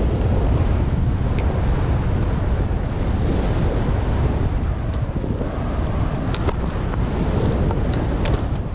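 Wind buffeting an action camera's microphone at skiing speed, a steady heavy rumble, with the hiss of skis cutting through deep powder snow and a few light ticks.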